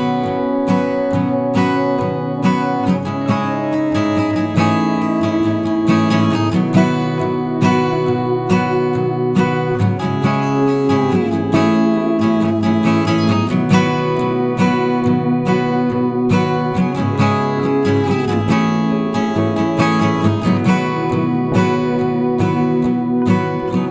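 Background music: acoustic guitar played with plucked and strummed notes and occasional slides.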